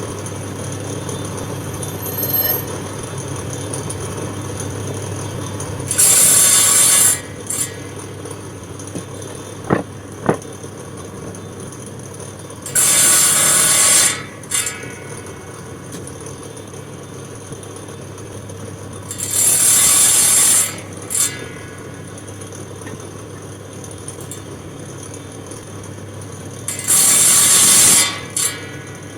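Power saw cutting through turned wooden table legs: four short cuts, each lasting just over a second, about seven seconds apart. Two sharp knocks come between the first two cuts, and a steady low hum runs underneath.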